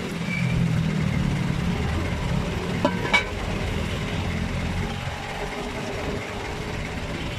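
Two sharp metallic clanks about three seconds in, as the large aluminium lid is set onto the stew pot, over a low, steady engine rumble.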